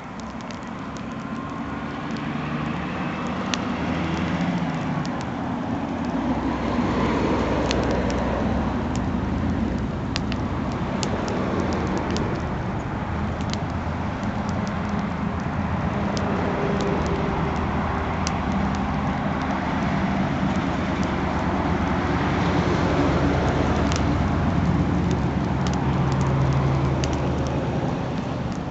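Campfire crackling with scattered sharp pops over a loud, steady low rumble that swells over the first few seconds.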